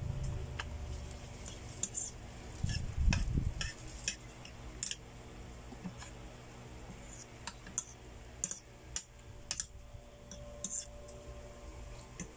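Metal fork clinking and scraping against a plate as spaghetti is twirled and eaten, in scattered sharp clicks, with a low thudding rumble about three seconds in.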